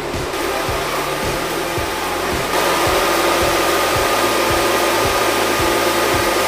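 Paper slitter-rewinder cutting a mother reel into smaller reels, running with a steady whirring rush and a faint hum, louder about two and a half seconds in. A beat of background music runs underneath.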